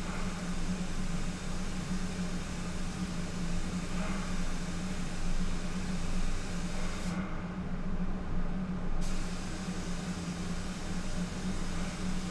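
Steady drone of a paint spray booth's airflow with a low hum, under the continuous hiss of a spray gun laying down base coat.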